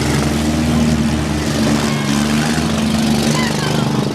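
Demolition derby car engines running in a steady, loud drone.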